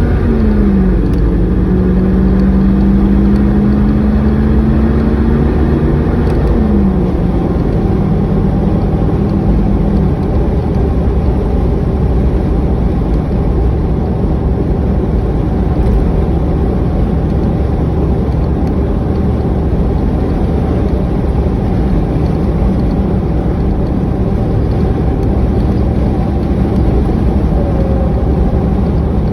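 Engine running with a freshly replaced fuel injector in place of a bad one. It is a steady low rumble whose pitch rises and dips during the first ten seconds, then holds even.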